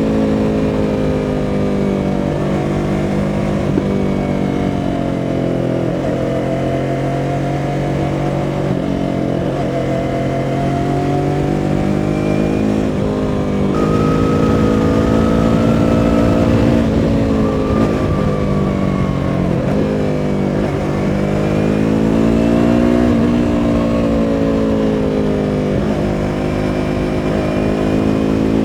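2017 Yamaha R3's 321 cc parallel-twin engine running under way, its pitch climbing, dropping and climbing again several times through throttle and gear changes.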